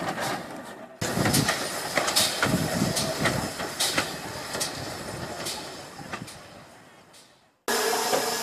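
GWR steam locomotive No. 3205 and its train on the move, the wheels clicking over the rail joints as the sound fades steadily away. Near the end it cuts abruptly to a steady hiss close beside the engine.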